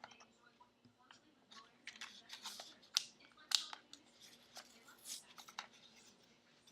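Plastic packaging of an iPhone bumper case being handled and worked open by hand: scattered clicks and crinkles, busier from about two seconds in.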